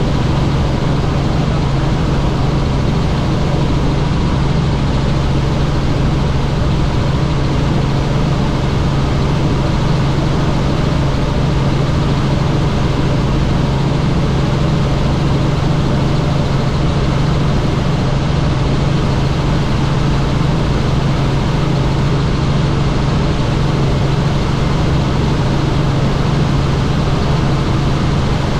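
Helicopter in flight: steady, loud rotor and engine noise with a strong low hum that holds unchanged throughout.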